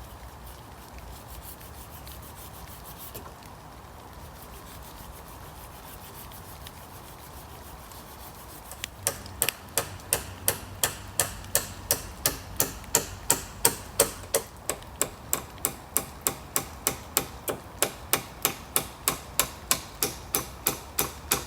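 A hammer driving nails into wooden rafters: a long run of rapid, even blows, about three a second, starting about nine seconds in. Before that there is a steady background of rain.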